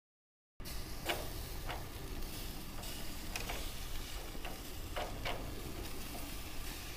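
Light metal clicks from tongs handling kebab skewers on a gas grill, a handful of sharp ticks at irregular intervals over a steady hiss.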